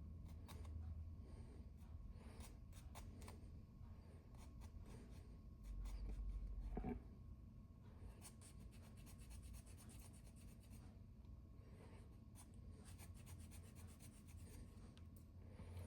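Faint scratching strokes of a small hand file on a plastic signpost, coming in quick runs, with a brief low handling bump about six seconds in.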